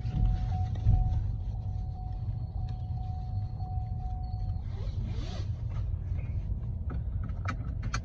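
Ford EcoSport's seat belt warning tone, a steady electronic tone that stops about four and a half seconds in, over a low cabin rumble. It is followed by the rustle of belt webbing and a few sharp clicks near the end as the seat belt is buckled.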